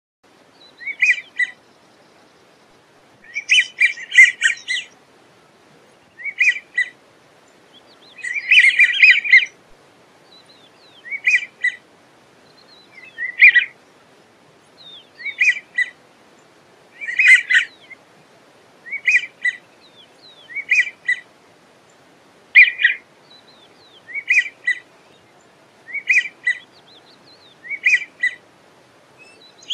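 American wigeons calling: short whistled calls repeated every second or two, some coming in longer, denser clusters.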